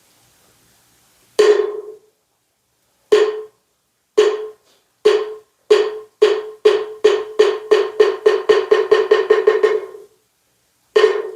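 Moktak (Korean Buddhist wooden fish) struck slowly at first, then faster and faster into a rapid roll that dies away, followed by one final single strike. This accelerating roll is the traditional moktak signal that opens the chanting.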